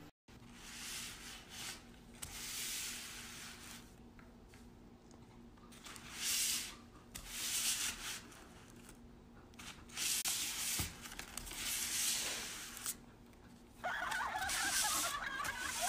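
Foil and paper food wrappers rustling and crinkling in irregular bursts. Near the end a wavering pitched sound comes in.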